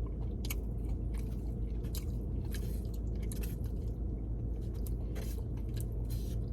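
Close-up chewing and biting of food, with scattered wet mouth clicks, over a steady low hum.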